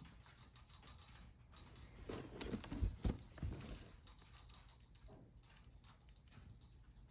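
Faint rustling and soft knocks from handling in a snake enclosure, as a feeder mouse is offered and the hide is moved. A cluster of knocks comes about two to three and a half seconds in, loudest near three seconds.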